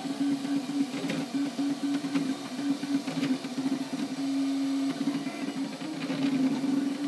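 MakerBot Replicator 3D printer running a print: its stepper motors hum in short, quickly changing tones as the extruder head moves, with one longer steady tone a little past four seconds in.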